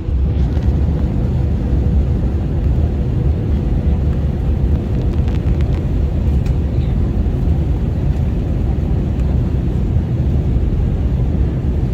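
Steady cabin noise of an airliner in flight: a constant low rumble of engines and rushing air with a faint steady hum on top.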